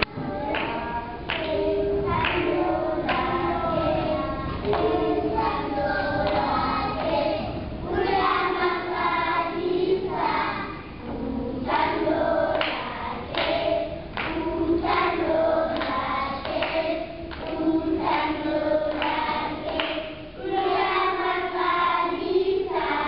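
A choir of young children singing together, with rhythmic hand claps about once a second.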